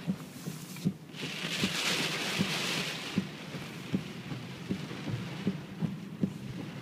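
Heavy hurricane rain and road spray heard from inside a moving car, with a louder rush of spray starting about a second in and lasting about two seconds. Under it, a soft knock repeats steadily about every three-quarters of a second.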